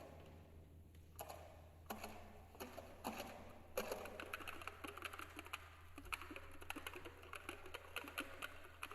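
Quiet passage of contemporary chamber music for alto flute, alto saxophone, piano and percussion: a dense patter of soft clicks and taps mixed with short breathy tones, growing busier about four seconds in.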